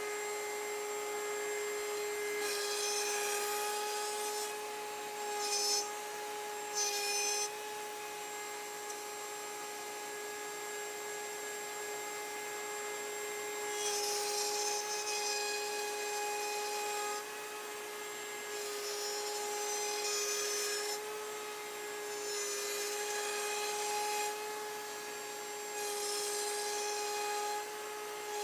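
Table-mounted router running at a steady high whine while a wooden blank is swung through the bit on a circle-cutting jig. Rasping bursts of cutting noise come and go several times, each lasting a second or two, as the bit bites into the wood.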